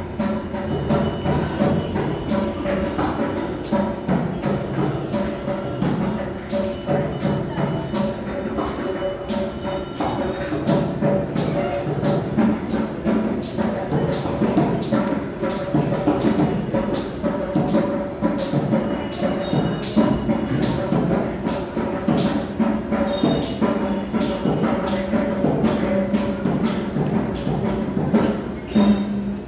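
Bells ringing continuously in fast, repeated strokes, each stroke leaving a sustained metallic ring, with percussion beneath.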